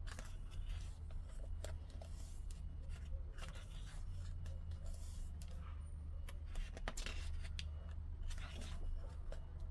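Heavy glossy pages of a large photobook being turned by hand: a series of short papery swishes and rustles, over a steady low hum.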